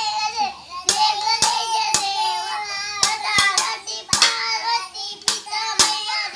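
Two young children singing a devotional bhajan in unison while clashing pairs of steel plates together like cymbals, the metal strikes landing unevenly, roughly every half second to a second.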